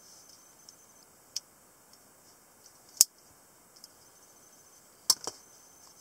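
Sharp metallic clicks from an Italian stiletto automatic knife being worked by hand: a light click, a loud snap about three seconds in, then two quick clicks close together near the end.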